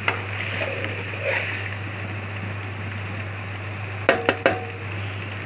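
Penne and vegetables frying in an aluminium kadai: a steady low sizzle over a constant hum. About four seconds in, three quick clinks with a short ring as a glass sauce bottle knocks against the pan.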